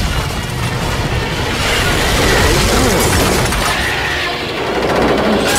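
Cartoon action sound effects of a freezing blast and ice cracking and shattering, over background music. There is a sharp crash near the end.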